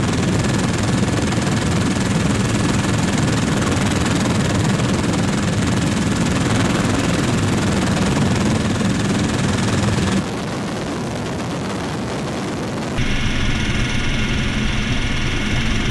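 Helicopter in flight: steady engine and rotor noise heard from on board. The sound changes abruptly about ten seconds in, dropping in level, and again about three seconds later, when it comes back louder with a higher steady whine.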